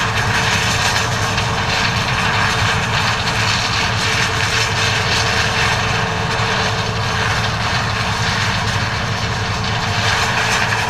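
John Deere 9400 combine running steadily while harvesting corn: a loud, even drone of diesel engine and threshing machinery, with no change in pace.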